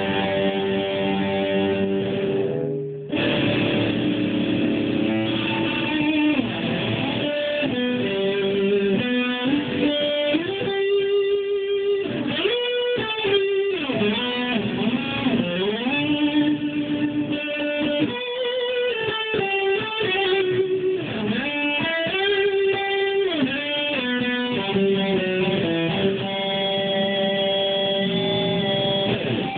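Telecaster-style electric guitar played solo: sustained lead notes with frequent string bends gliding up and down in pitch, with a short break about three seconds in.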